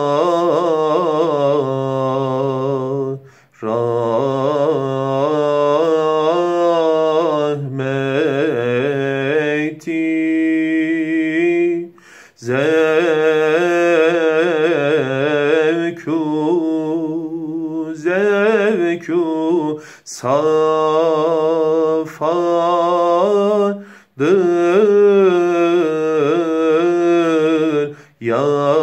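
A man sings a tevşih, a Turkish Sufi hymn, solo and unaccompanied in the Çargâh makam. He sings in long, ornamented phrases with held, wavering notes, broken by several short pauses.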